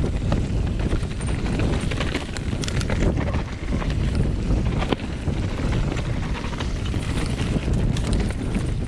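Wind buffeting the action camera's microphone as a Specialized Enduro Expert 29 mountain bike rolls fast down a leaf-covered dirt trail, with scattered sharp clicks and rattles from the bike over bumps.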